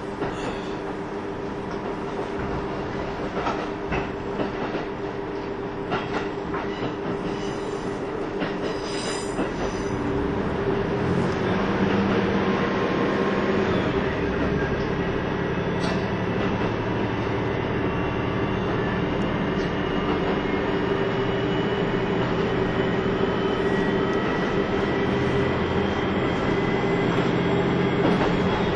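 Running sound inside a KiHa 25 diesel railcar: a steady drone with wheel clicks over the rails early on. From about ten seconds in it grows louder, with a faint whine slowly rising in pitch as the train picks up speed.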